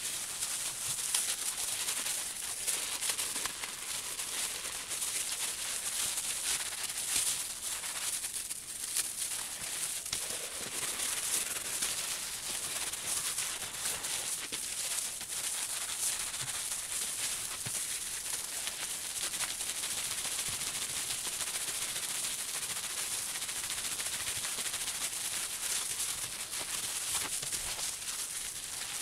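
Plastic-gloved hands rubbing a wet, soapy Karachay wool felt slipper against bubble wrap: a steady crackling rustle of many small clicks, the sound of fulling the felt down to size.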